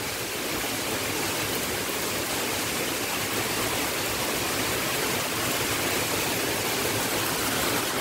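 Heavy rain pouring down on roofs and trees, a steady, even rushing hiss without letup.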